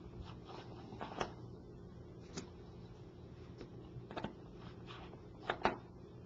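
Faint, sharp clicks and taps of a small screwdriver and tools against the phone as the tri-wing screws of the home button plate are removed, about six in all with a close pair near the end, over a steady low electrical hum.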